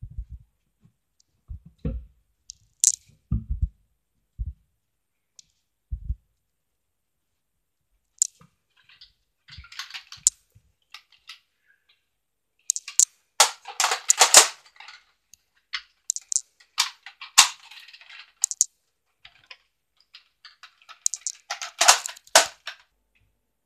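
Soft low thuds like footsteps, then scattered clicks and several bursts of plastic clicking and clattering from a Nerf blaster being handled. The busiest bursts come about halfway through and again near the end.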